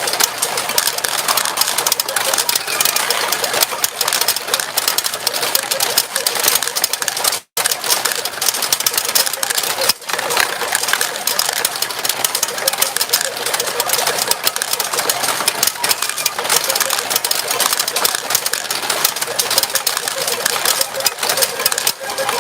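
Retro pachinko machine in play: a dense, continuous clatter of steel balls being fired and rattling down through the pins. The sound drops out for an instant about seven seconds in.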